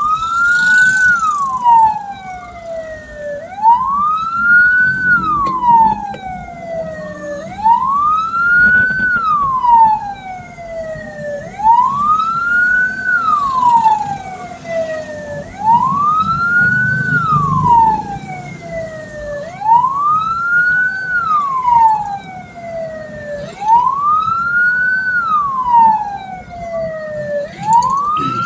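A hearse's electronic siren wailing, its pitch rising and then gliding down in a slow cycle about every four seconds, over the low rumble of the vehicle on the road.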